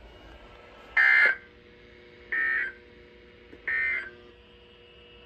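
Emergency Alert System end-of-message signal: three short bursts of SAME digital data tones, warbling around 2 kHz and spaced about a second and a half apart, marking the end of the warning broadcast.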